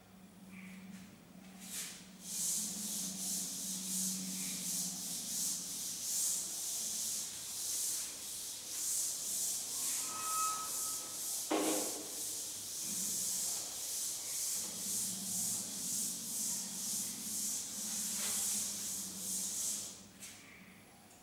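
Felt chalkboard duster wiping chalk off a blackboard in quick back-and-forth strokes, about two a second. It starts about two seconds in and stops about a second before the end, with a single knock midway.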